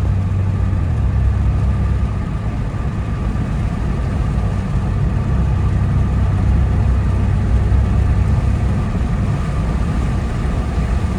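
1994 Chevy S10 Blazer's 4.3-litre V6 running steadily under way, with engine and road rumble heard from inside the cab with the window open.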